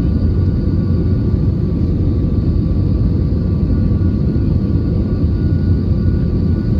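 Cabin noise inside an Airbus A320 on final approach: a steady, loud rumble of airflow and engines, with a few faint steady engine tones above it.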